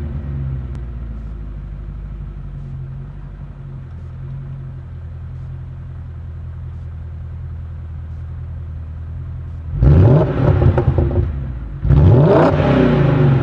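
BMW E39 M5's S62 V8, muffler delete with the factory resonator still fitted, idling steadily just after a hot start, then revved twice, about ten and twelve seconds in, each rev climbing and dropping back.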